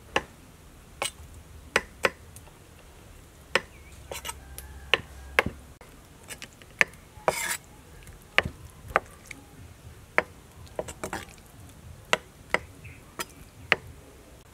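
Cleaver chopping chicken giblets on a thick wooden chopping block: sharp knocks at an irregular pace, about one every half second to a second.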